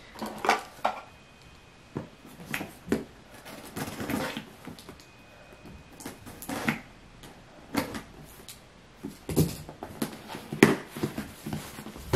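Cardboard boxes being handled: scattered rustles, scrapes and taps as a printed gift box is lifted out of its cardboard shipping carton.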